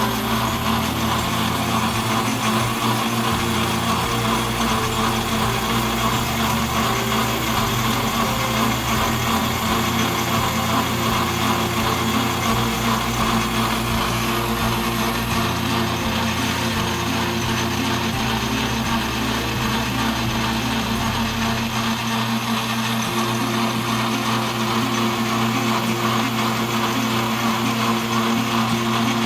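Atlas Craftsman 12-inch metal lathe running, a steady mechanical hum with a constant pitch.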